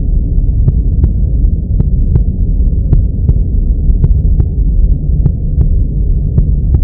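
Added background soundtrack: a muffled, bass-heavy rumble with a steady ticking beat a little under three times a second.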